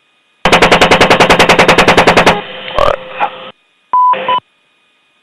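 An Apache's 30 mm M230 chain gun firing one burst of about twenty rounds at roughly ten a second, lasting about two seconds, heard over the aircraft's radio/intercom audio. After it comes a short stretch of radio hiss and a brief beep tone about four seconds in.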